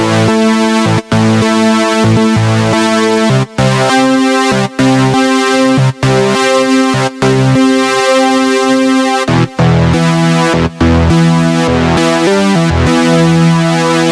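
Synthesizer keyboard sound playing sustained chords that change every second or two, each broken off by a brief gap before the next.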